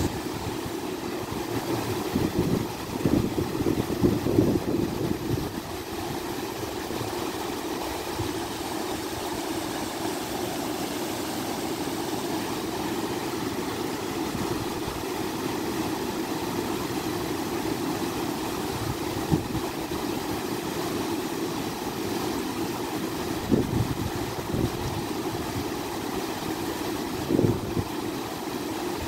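Steady rush of river water pouring over a low weir into white water below. A few low buffets of wind on the microphone come about two to five seconds in and again near the end.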